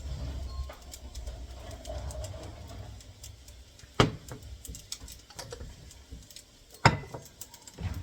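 Kitchen utensil clatter while cooking fried rice: scattered light clicks and two sharp knocks, about four and seven seconds in, with a low hum in the first few seconds.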